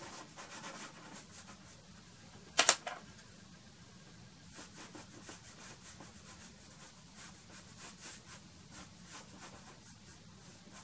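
Soft pastel stick dabbed in short strokes on black pastel paper: a faint, repeated scratchy tapping, with one sharp click about two and a half seconds in.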